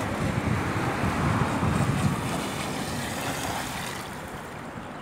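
Electric RC mono-hull speedboat running on a 3S LiPo pack, its motor and hull spray across the water mixed with wind buffeting the microphone. The sound fades toward the end as the boat comes in close.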